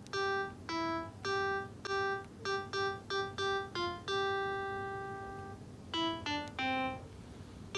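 A simple melody of single piano-like notes played one at a time, with a long held note in the middle.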